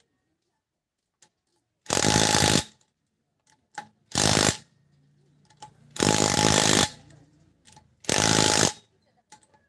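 Impact wrench hammering on a wheel's lug nuts in four short bursts, each under a second, about two seconds apart.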